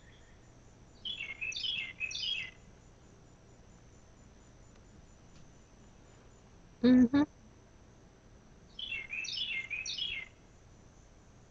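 A songbird sings a short phrase of quick, high whistled notes twice, about a second in and again near nine seconds, over a steady faint insect trill. About seven seconds in comes a brief, loud two-part voice-like sound, the loudest thing heard.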